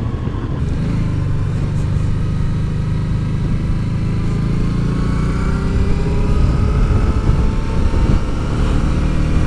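Motorcycle engine running steadily at road speed, heard from on the bike, with a low drone and a faint whine that slowly rises in pitch.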